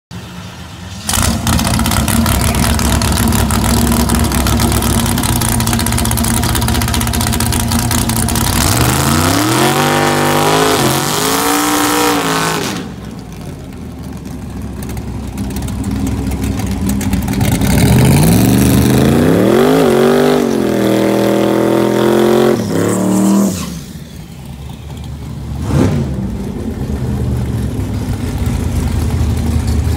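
Twin-turbo Fox-body Ford Mustang doing a burnout: the rear tyres spin with a loud, steady rush of noise while the engine runs at high revs. The engine pitch climbs and falls twice, then a single sharp pop comes near the end and the engine settles at lower revs.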